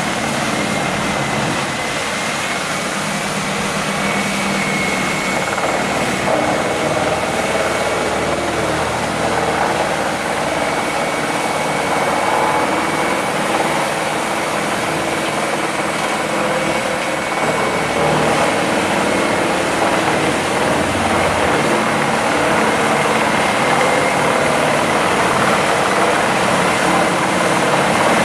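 Heavy engine-driven machine running steadily and loud: a low engine drone under dense mechanical noise, with a thin steady whine on top.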